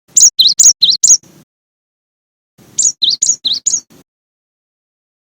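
Cinereous tit (gelatik batu) singing: two quick runs of five clear whistled notes, each run alternating a high note and a lower one, about a second and a half apart.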